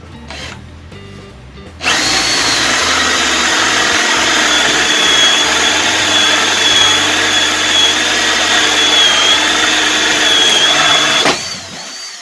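Electric drill running a hole saw through a cut for about nine seconds, starting about two seconds in and stopping near the end. It gives a steady high whine over the cutting noise. The hole saw is very dull.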